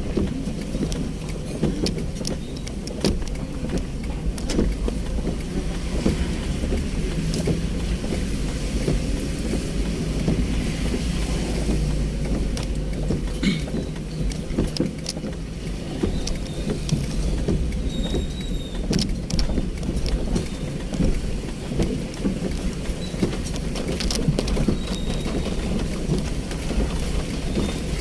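Ambulance on the road: steady engine and road rumble, with frequent small rattles and knocks.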